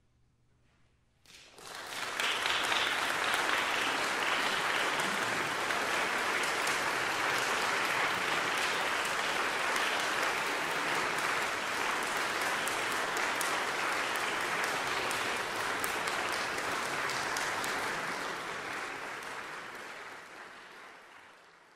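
Audience applauding after a live voice-and-piano performance, starting abruptly about a second in as a dense, steady clapping and fading away near the end.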